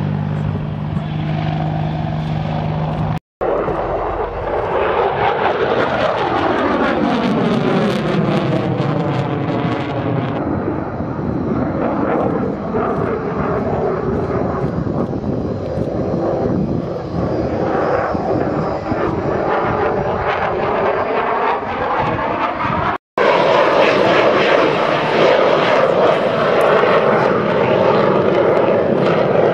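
Briefly an AH-64 Apache helicopter's rotor thudding. Then an F-16 fighter's jet engine during a display pass, a loud roar with a sweeping, wavering pitch as it flies by. After a cut about 23 seconds in, the jet roar comes back louder.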